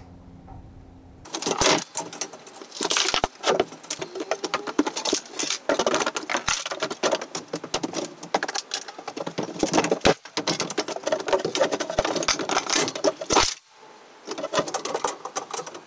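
Rapid, dense clattering and knocking of wooden planks and debris as an old timber floor is torn out. It starts about a second in, drops away briefly near the end, then resumes.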